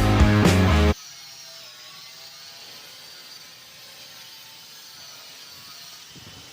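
Rock music with guitar that cuts off abruptly about a second in, leaving a faint, steady whirring hiss with a few faint wavering tones.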